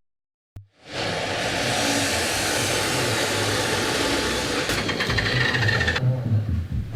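Forge burner or blower running, a steady rushing noise that starts about a second in after a short click; near the end the hiss drops away and a lower hum remains.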